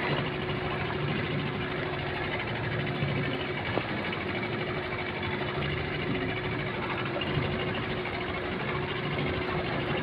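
A boat's engine running steadily at a constant speed, with a steady hum.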